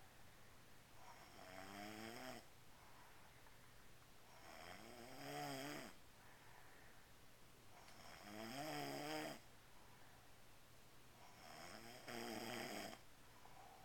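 Slow, regular snoring: four drawn-out snores about three and a half seconds apart, each with a pitch that bends up and down, with quieter breathing between them.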